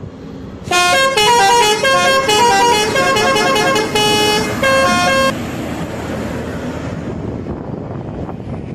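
Indonesian bus 'telolet' melody horn playing a fast tune of stepping notes, several sounding together, starting just under a second in and cutting off about five seconds in. After it comes steady road and traffic noise.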